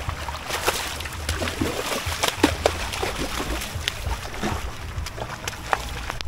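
Water sloshing and splashing close beside a kayak, with many scattered sharp clicks and small knocks over a steady low rumble.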